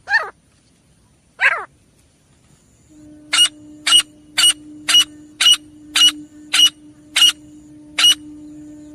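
Francolin (teetar) calls: two short falling calls, then from about three seconds in a run of about ten short, sharp notes, roughly two a second. A steady low hum runs under the run of notes.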